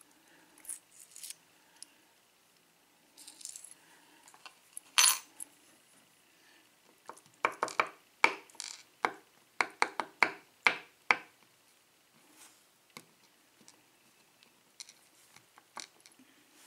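Small metal key pins from a Schlage lock cylinder clinking as they drop onto a hard surface. One sharp click comes about five seconds in, then a quick run of about ten clicks.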